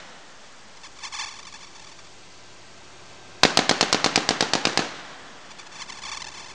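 .50-calibre machine gun firing one burst of about fourteen shots at roughly ten a second, a little over a second long, starting about three and a half seconds in. Fainter short rattles come about a second in and again near the end.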